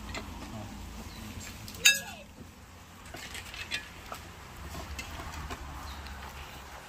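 Metal serving spoon clinking against an aluminium cooking pot and plates while rice and peas is dished out: one sharp clink with a short ring about two seconds in, then a few lighter knocks.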